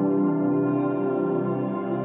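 Background ambient music: soft held synthesizer tones, a sustained drone with no beat.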